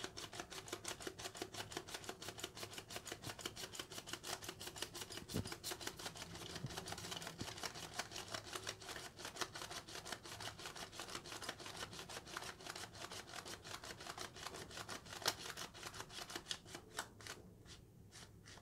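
Plastic film-developing reel being ratcheted, its two halves twisted back and forth to wind 35mm film onto it: a rapid, even run of light plastic clicks, several a second, thinning to a few scattered clicks near the end.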